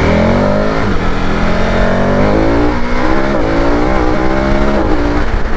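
KTM Super Adventure S motorcycle's V-twin engine accelerating hard through the gears. Its note rises in pitch and drops back at each of several upshifts.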